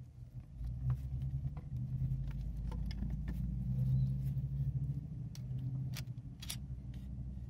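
Low, steady rumble of a nearby motor vehicle's engine, swelling and easing, with light metallic clicks of transmission clutch plates being handled and lifted out.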